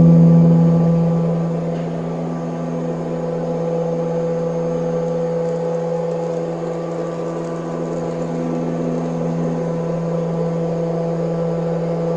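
Brother SPEEDIO M200X3 machining centre running while it machines an aluminium part, a steady hum with several fixed tones. It eases down from a louder peak in the first two seconds, then holds level.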